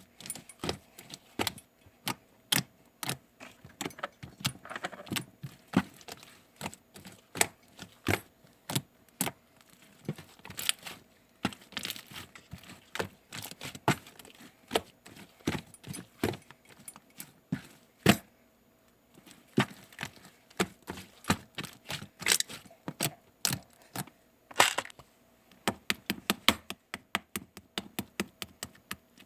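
Slime being pressed and poked by hand, giving irregular sharp clicking pops several times a second, with a brief lull a little past the middle.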